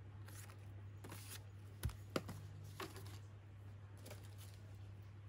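Paper frames being handled and set down on a pile of papers: soft rustling with two sharp taps about two seconds in, over a steady low hum.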